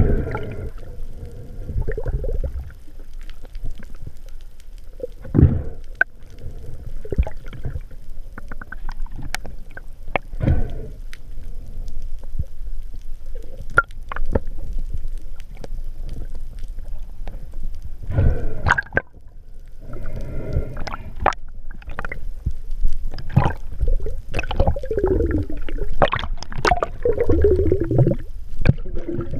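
Underwater water noise, a low rush with gurgling, broken by many scattered sharp clicks and knocks as a speared hogfish and the spear are handled.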